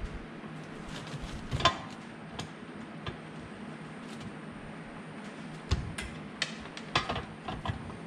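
Irregular clicks and light knocks of a hand tool and stiff electrical wire being worked into a metal outlet box, the sharpest about a second and a half in and twice near the end, over a steady low hum.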